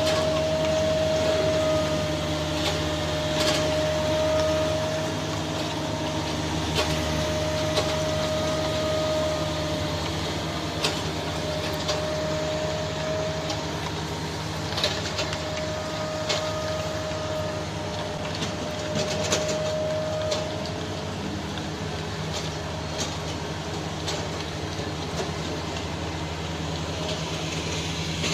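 Heavy machinery's engine running steadily, with a mid-pitched tone sounding in repeated stretches about every two seconds until about two-thirds of the way through, and scattered knocks and clanks.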